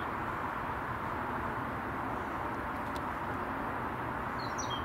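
Steady outdoor background noise, an even hiss with a low rumble beneath, with a few short high bird chirps near the end.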